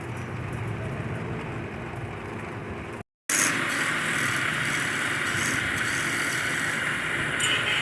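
Wood lathe running with a turning tool cutting the spinning wood, a steady scraping noise. It cuts out abruptly about three seconds in and resumes louder and brighter.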